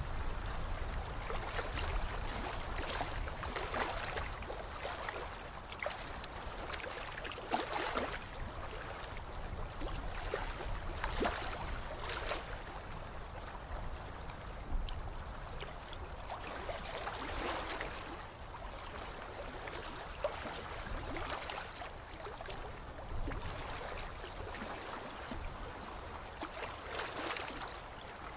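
Water flowing and trickling, with irregular soft surges and splashes over a low rumble that eases off after the first half: the water ambience of a ride boat moving along its channel.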